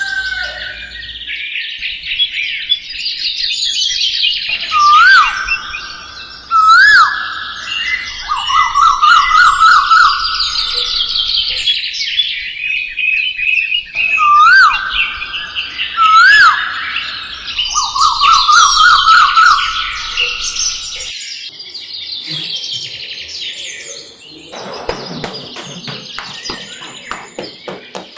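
Several songbirds chirping and singing together, one repeating an upward-swooping whistle followed by a fast trill; near the end comes a spell of rapid clicking.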